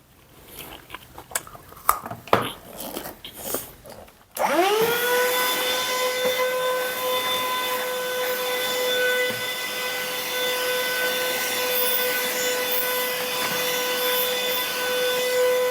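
A few clicks and knocks of handling, then about four seconds in a small electric appliance motor switches on, spins up quickly and runs with an even, steady whine.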